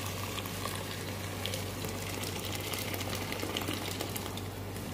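Boiling water being poured into a hot pot of sautéed rice, which bubbles and sizzles as it takes the water: an even rushing noise with scattered small crackles. This is the stage where the rice gets just enough hot water to cover it and cook.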